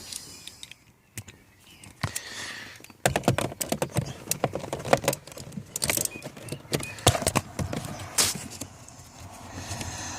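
Small metal hand tools clinking and rattling as they are handled, in quick irregular clatters starting about three seconds in and dying down near the end.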